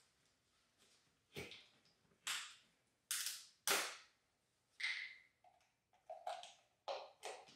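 A string of sharp, irregular plastic snaps, clicks and rustles, about eight in all, made by handling a hand-operated fluid pump and a bottle of automatic transmission fluid while they are readied for filling.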